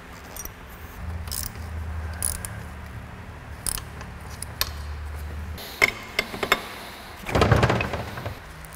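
Workshop handling sounds: several sharp metal clicks and clinks of small transmission fittings and tools being picked up and set down. A low steady hum runs for a few seconds in the middle, and a louder rustling clatter comes near the end.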